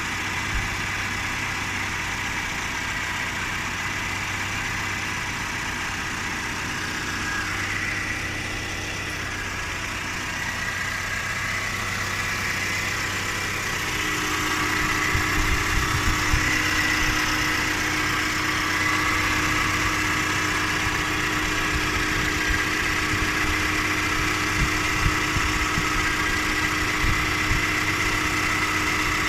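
Opel Astra K's engine idling, with a steady high whine over the running that grows louder about halfway through. The owner complains of loud engine noise.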